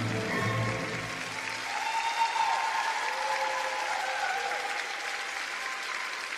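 The closing held notes of the skater's violin-and-orchestra music fade out in the first second or two, and the arena audience applauds steadily.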